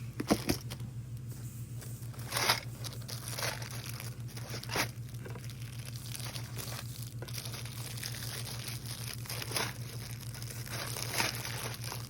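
Plastic packaging crinkling and rustling as it is handled, in scattered short bursts, over a steady low hum.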